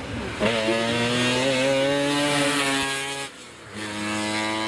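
Historic racing car's engine pulling hard, its pitch climbing steadily with the revs, then a brief lift about three seconds in, like a gear change, before it pulls on again at lower revs.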